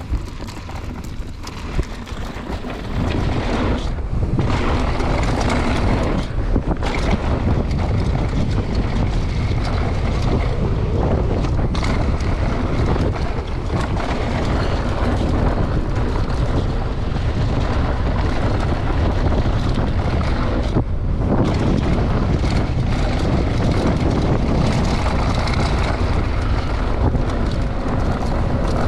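Mountain-bike descent heard on a GoPro: wind buffeting the action camera's microphone and tyres rolling over the dirt trail, a steady loud rush. Quieter for the first three seconds, then the rush comes up to full strength, with brief dips about four and seven seconds in.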